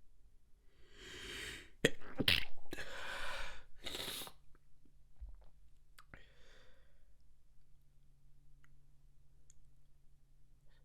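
A person's breath catching in a rising in-breath, then a stifled sneeze forced out with a sharp burst and a few hard breathy pulses just after. A softer breath follows about two seconds later.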